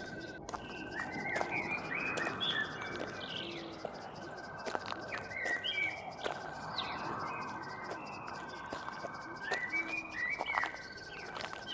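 Outdoor birdsong ambience: several small birds chirping, over a rapid, even trill that breaks off and starts again every few seconds, with scattered short clicks.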